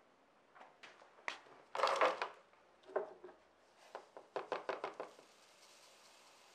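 Plastic cup and frozen cubes being handled: a few light knocks and a louder clatter. Then sodium hydroxide is poured from a plastic container onto frozen noni-water cubes in a plastic cup, heard as a quick run of small ticks and then a soft steady hiss.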